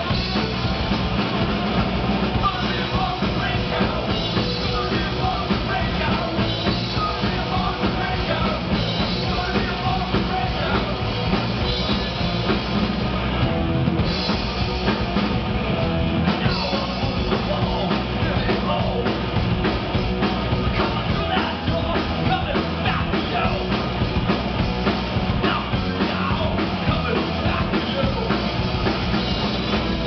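Live punk rock band playing loud and without a break: a drum kit, an electric guitar and a bass guitar, with a singer's vocals over them.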